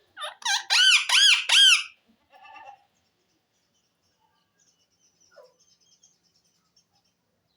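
Pet parrot giving about four loud, high-pitched squeaky calls in quick succession, each rising and falling in pitch, then one softer call, after which it goes quiet.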